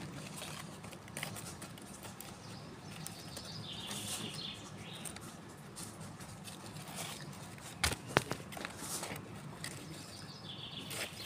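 Hands scraping and patting garden soil and setting a piece of bark close to the microphone, small crackles and rustles, with two sharp knocks about two-thirds of the way through.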